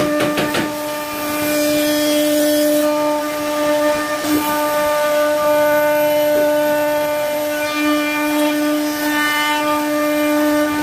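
CNC router spindle whining at a steady pitch as its router bit carves grooves into a solid-wood door panel, with a higher hiss that swells and fades several times. A few sharp clicks sound at the very start.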